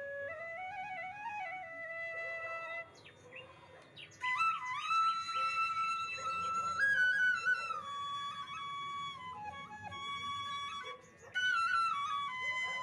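Background music: a solo flute melody with ornamented, gliding notes, pausing briefly twice.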